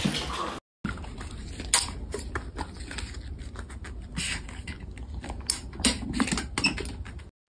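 Small metal pedal bin clicking and clacking as a dog steps on and paws at its foot pedal; a run of irregular light clicks and taps. It opens with the fading end of a loud crash.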